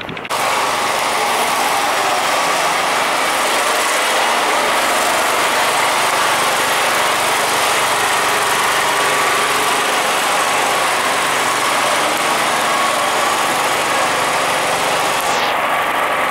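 Loud, steady din of a road tunnel, the noise of traffic and ventilation inside the concrete tube. It starts abruptly a fraction of a second in, and its hissy top end falls away near the end.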